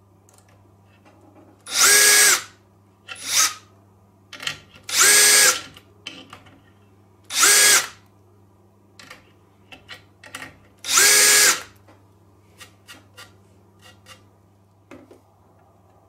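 Electric screwdriver driving wood screws through a metal corner bracket into a wooden frame, in four short runs of under a second each, with a brief extra blip after the first. Light clicks of handling fall between the runs.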